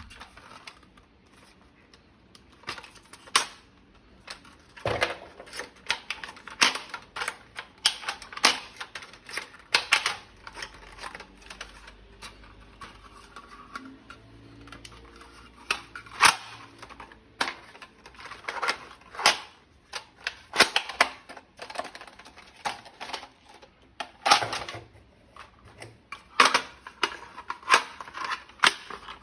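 Irregular sharp clicks and snaps of hard plastic toy gun parts being handled, a few louder clacks among lighter ticks.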